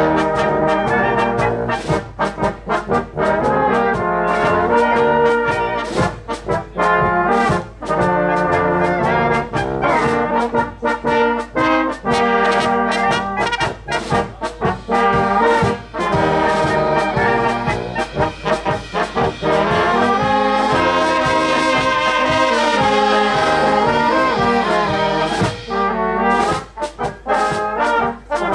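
Brass band music: an instrumental passage with trumpets and trombones over a steady beat.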